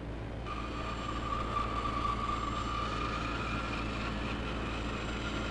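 Woodworking spindle moulder running and cutting a curved timber, a steady high whine over a low hum, the whine starting about half a second in.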